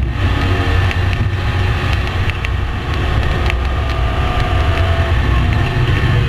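Race car engine running loudly and steadily at speed, with wind and road noise.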